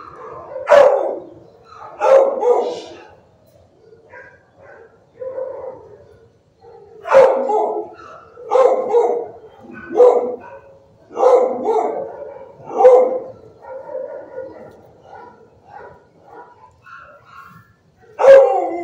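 A dog barking: about eight loud barks at irregular intervals, with a pause of a few seconds after the first two.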